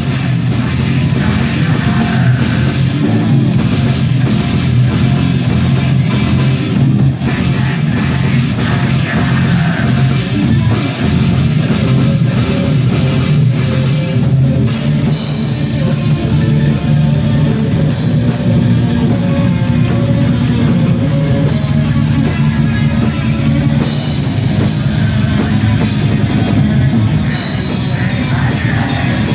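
Black metal band playing live: distorted electric guitars and a drum kit, loud and dense without a break.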